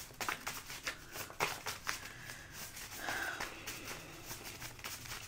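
A tarot deck being shuffled by hand: a run of irregular soft card flicks and rustles.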